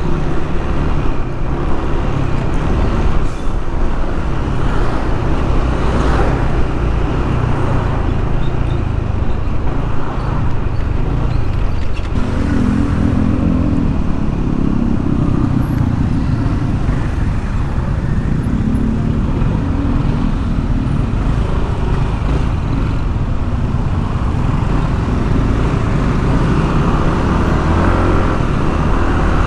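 Riding noise from a moving Yamaha NMAX 155 scooter in traffic: a loud, steady rumble of wind on the microphone over the engine and surrounding vehicles. A deeper engine hum swells for a few seconds around the middle and again a little later.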